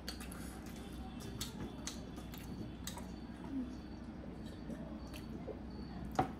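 Faint chewing of momos, with scattered soft wet clicks and smacks from the mouth, over a steady low hum.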